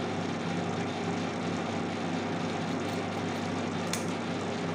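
Steady electrical hum of a microwave oven running on preheat, with one light click about four seconds in.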